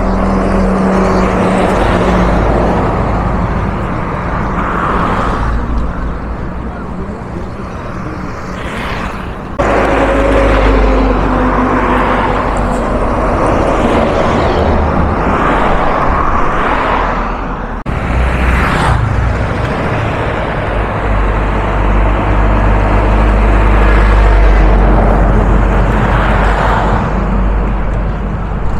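Heavy highway traffic passing close by: a tanker lorry, a long-distance coach and trucks, with engine drone and tyre rush. The sound changes abruptly twice, about 10 and 18 seconds in.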